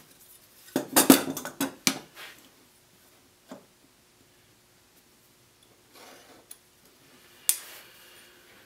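A combination square's steel rule and a scribe clack and slide against a polyethylene block on a wooden workbench as they are repositioned. There is a cluster of sharp knocks about a second in, a single knock midway, and a sharp click followed by a brief scrape near the end.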